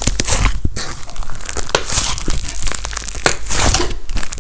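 Thick blue slime squeezed and kneaded by hand: a dense, sticky crackling with many small clicks and pops that comes in irregular swells as the hand presses into it and lets go.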